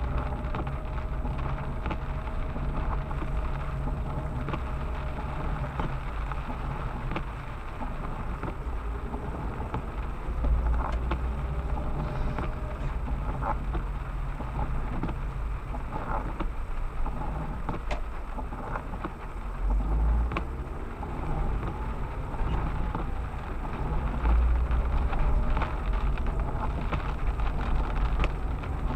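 Wind gusting against the microphone over a steady hiss of rain, with faint passing traffic. The strongest gusts come about ten, twenty and twenty-five seconds in.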